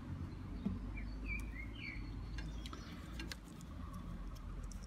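Quiet low background hum with a few faint clicks as test leads and wires are handled, and a few short faint bird chirps about a second and a half in.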